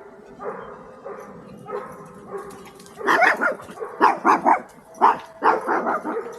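A dog barking repeatedly: quieter yips and whines at first, then a run of loud, sharp barks from about three seconds in.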